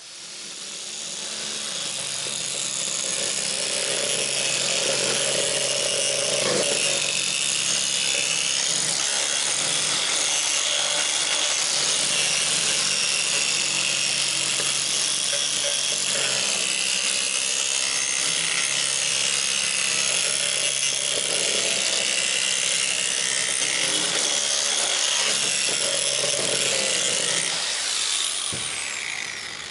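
Rotary power tool grinding and cutting into the sheet-metal skin of a car tailgate, running steadily with a harsh hiss. Near the end it eases off and its whine falls in pitch as it winds down.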